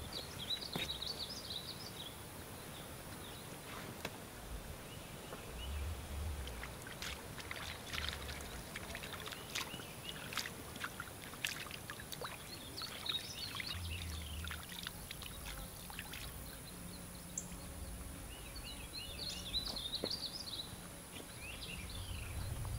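Scales being scraped off a freshwater drum with a bone scraper: a loose run of short scratchy strokes and clicks, with a few soft low thuds. Birds chirp briefly near the start, about halfway through and again near the end.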